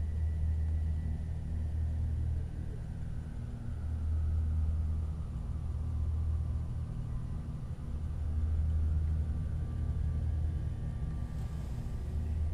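Steady low rumble that swells and eases every few seconds.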